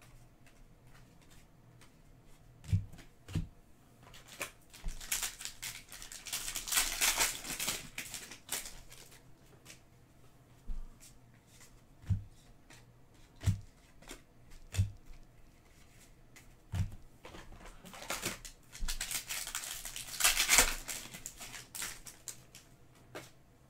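2016 Panini Donruss soccer trading cards being flipped through by hand, giving two stretches of sliding, rustling card-on-card noise, with a handful of short soft thumps in between.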